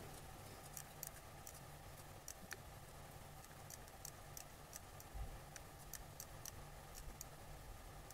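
Faint, irregular computer mouse clicks, about two a second, over a low steady hum.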